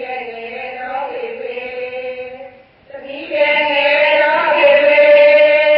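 Singing of a Burmese dhamma song: a voice holds long, drawn-out notes in two phrases, with a brief break about two and a half seconds in and a louder second phrase.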